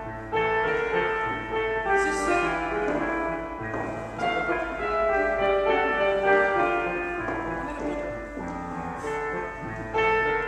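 Instrumental ballet class music playing, a melody of many held notes.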